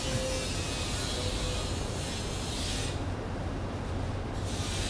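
Fleece blanket rustling and rubbing as it is pulled up over a person's head, close to the microphone. The sound turns duller for about a second past the middle.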